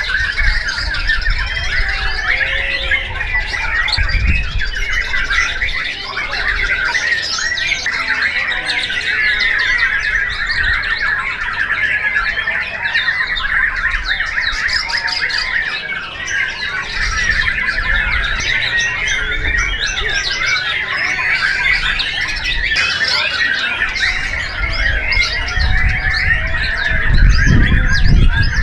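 White-rumped shama (murai batu) singing a long, unbroken run of fast, varied phrases, with other competing songbirds singing over it at the same time. Low rumbles are heard near the end.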